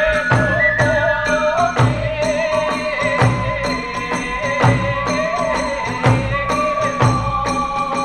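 Kagura hayashi music: taiko drum strokes on a steady beat and ringing tebyoshi hand cymbals under a held, wavering melody line that bends in pitch.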